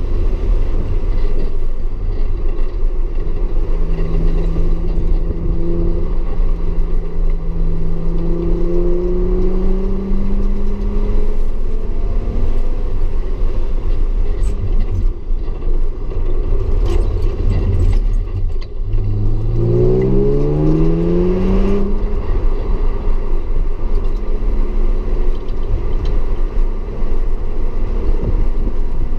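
Audi S4 driven at speed on a race track under a steady low rumble. The engine note climbs slowly for several seconds, then about two-thirds of the way in rises quickly as the car accelerates hard.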